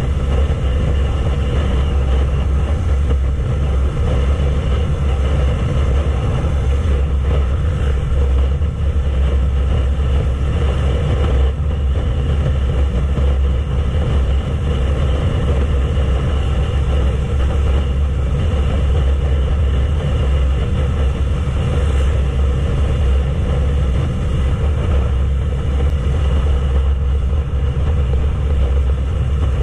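Yamaha YZF-R3's parallel-twin engine running at a steady cruising speed, under heavy wind noise on the camera's microphone. The engine note holds steady with no shifts or revving.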